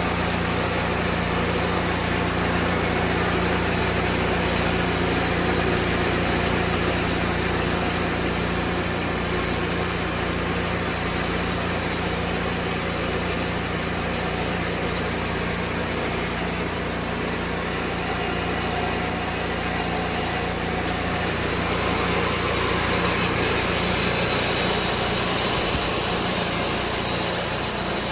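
Sawmill engine running steadily at a constant pitch, with no letup or change in speed.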